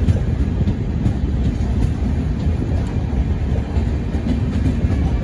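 Karnataka Express running through a station without stopping, heard from aboard a coach: a steady low rumble of the wheels on the rails with occasional light clicks from the wheels over the track.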